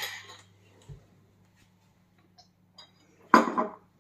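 Faint clinks and knocks of glasses, spoons and bowls at a table, with a dull thump about a second in. A short, loud noise a little past three seconds in is the loudest sound.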